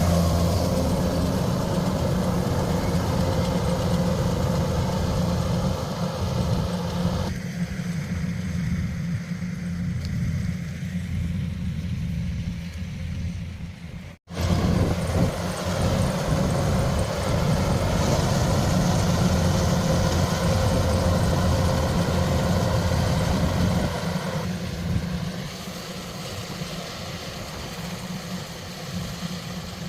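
Engine of heavy farm machinery running steadily with a deep hum. The sound cuts out for an instant about fourteen seconds in, then carries on.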